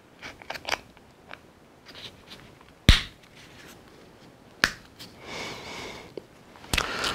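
Small plastic parts of a Hasbro Tatooine Skiff toy being handled and snapped together: a few light clicks, then sharp single snaps, the loudest about three seconds in, with a short stretch of plastic rubbing between them.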